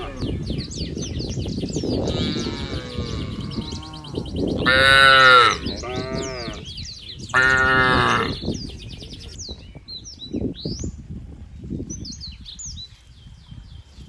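Cattle mooing twice, two loud calls about a second long, around five and seven and a half seconds in. Birds chirp throughout, over a low rustle that fades in the second half.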